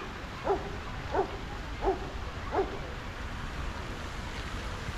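A series of short, evenly spaced animal calls, four in quick succession over the first three seconds and then stopping, over steady low background noise.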